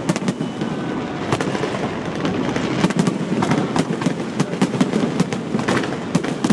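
Fireworks display bursting in quick succession: continuous crackling with sharp bangs every second or so.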